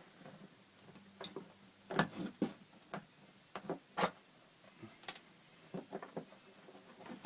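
Irregular sharp clicks and small knocks, about a dozen, of staples being pried out of a camper floor and old plastic trim being pulled away.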